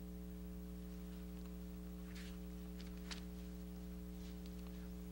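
Steady electrical mains hum on the recording, with a few faint papery rustles and a sharper click about three seconds in as Bible pages are turned at the lectern.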